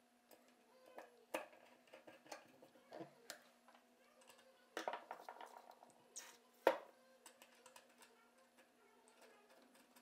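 Small metal clicks and taps as parts of a cast-iron Stanley No. 3 bench plane are handled and fitted, with a short spray-can hiss a little after six seconds in and a sharp knock just after it.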